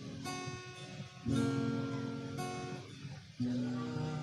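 Acoustic guitar strummed, with a new chord struck about once a second and left to ring.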